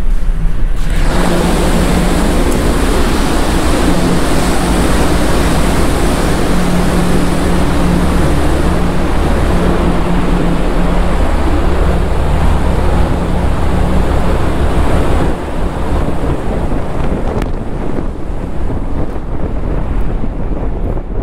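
Wind rushing over the microphone on the open deck of the ferry Kitakyushu II, over the steady low hum of the ship's engines and the rush of the sea. It starts suddenly about a second in as the door to the outer deck opens, and eases a little after about fifteen seconds.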